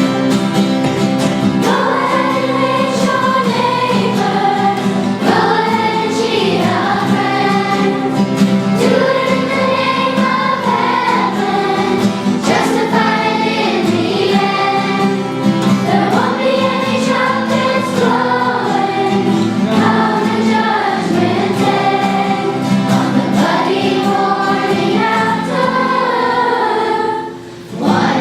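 A children's choir of schoolchildren singing a song together in unison, over steady sustained low notes, with a short break between phrases near the end.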